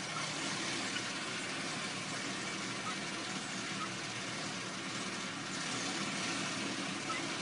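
Farm tractor engine running steadily as it works a hayfield, heard at a distance under a steady hiss.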